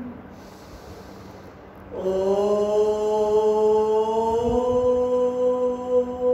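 A woman's long, sustained chanted tone, part of a pranayama breathing practice. It begins about two seconds in after a short quiet pause, its pitch rising slightly before holding steady.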